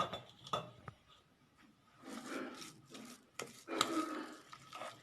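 Stirring a thick paste of ground dried figs, garlic and olive oil: a few short knocks in the first second, then two longer, noisy stirring strokes.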